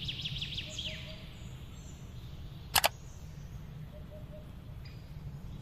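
Sound effects of an animated logo end card: a run of quick high chirps in the first second, then a sharp double click about three seconds in, over a steady low rumble.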